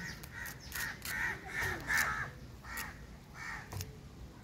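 A bird calling in a quick series of about seven short, repeated calls, with a few sharp clicks among them.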